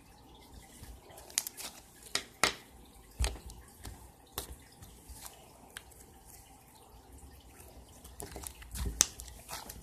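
Slime being stretched and squeezed by hand, giving scattered wet clicks and pops, several close together about two seconds in and again near the end.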